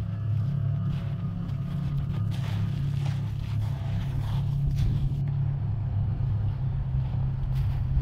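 A steady low rumble, with a few faint crackles about two to five seconds in.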